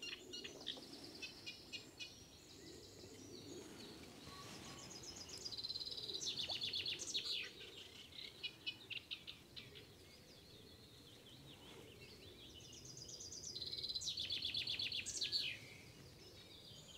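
Small songbird singing in quick trilled phrases. The two longest trills come about 5 and 13 seconds in and last a couple of seconds each, with shorter chirps between them.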